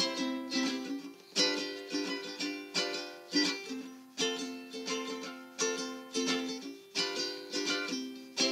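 Background music played on a plucked string instrument: strummed chords in a steady, even rhythm.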